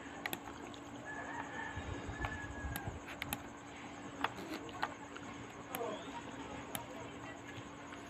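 Quiet room background with a few faint, scattered sharp clicks and a faint high thin whistle about a second in.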